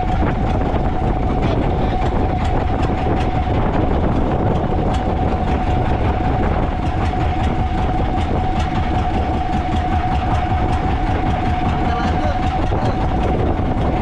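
A boat's motor running steadily with a constant whine, and light irregular ticking over it.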